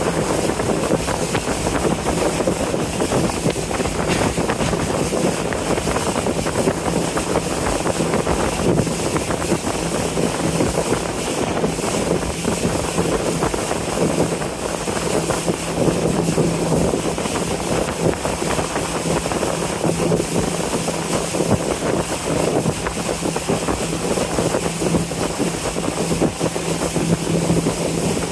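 River cruise boat's engine running steadily under way, a constant low drone, with wind rushing over the microphone.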